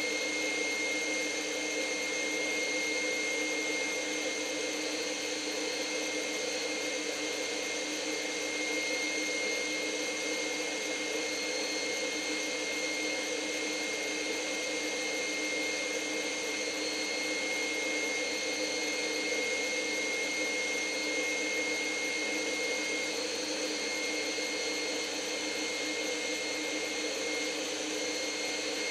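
Electric stand mixer running at a steady speed, its whisk beating hollandaise (egg yolks being emulsified with melted butter) in a steel bowl. Its even motor hum carries a steady high-pitched whine.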